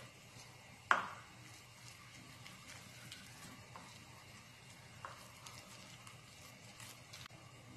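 A spoon stirring and scraping a thick chili seasoning paste in a ceramic bowl, faint throughout. A sharp clink of the spoon against the bowl rings briefly about a second in, and a lighter clink comes around five seconds in.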